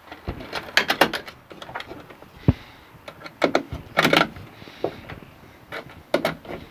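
Irregular metal clicks and rattles as a screwdriver works the fittings of flexible steel conduit at a steel junction box, the flex conduit clattering as it is handled, with one dull knock in the middle.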